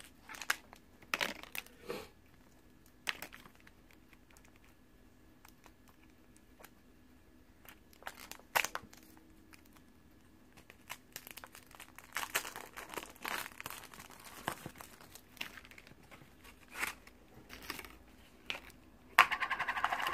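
Scattered light taps and clicks of small plastic toy packaging being handled. After that comes crinkling of a plastic blind bag being worked open, heavier from about two-thirds of the way in and loudest near the end.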